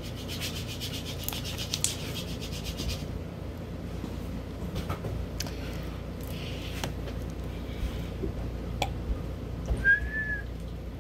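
Homemade blue slime made from white glue and laundry detergent being stretched and handled, rubbing with a quick run of fine crackling clicks in the first few seconds, then a few scattered clicks and a brief high squeak near the end.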